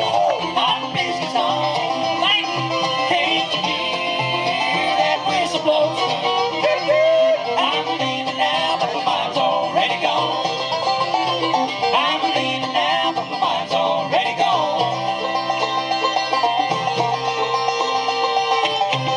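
Live bluegrass band playing an instrumental break, with banjo leading over fiddle and guitar.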